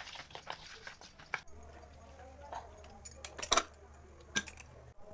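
Kitchen utensils clinking and knocking against dishes, scattered light clicks with a few sharper knocks about three and a half seconds in and another a second later.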